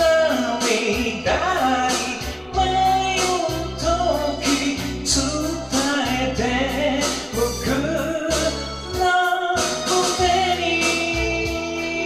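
A man singing a Japanese pop ballad into a microphone over a karaoke backing track with a steady drum beat.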